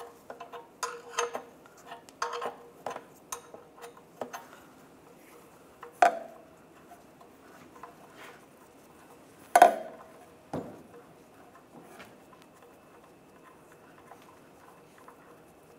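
Light metallic clicks and clinks from hands and tools working the oil-pan drain plug loose, irregular in the first few seconds, then a few sharper metal clinks about six and ten seconds in.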